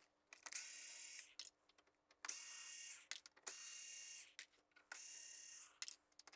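Small electric screwdriver running in four short runs of about a second each, with light clicks between, as it backs out the side screws of a mixing console's screen assembly.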